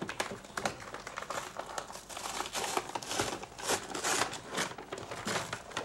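Thin white wrapping paper crinkling and rustling in a quick, irregular run of crackles as a gift box is unwrapped by hand.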